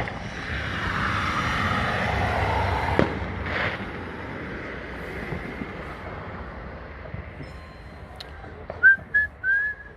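Fireworks: a long whistling hiss that falls in pitch, ending in a sharp bang about three seconds in and a second pop just after. Near the end come a few loud short pops with brief high whistles.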